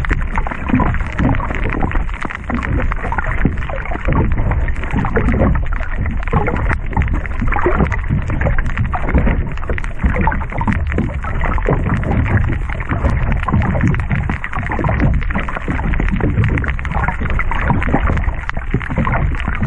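Water noise picked up by a camera held underwater in its housing: a muffled rush of surge with many small clicks and crackles throughout.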